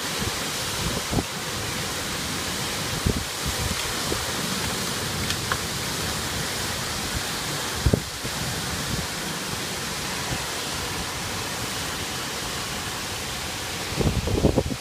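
Heavy wind-driven rain pouring down in a steady hiss, with gusts of wind hitting the microphone, strongest about eight seconds in and near the end.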